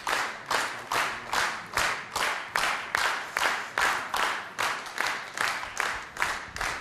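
Audience clapping in unison, a steady rhythmic beat of about two and a half claps a second.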